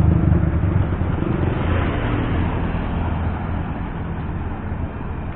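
Car engine running with a steady low hum that slowly gets a little quieter.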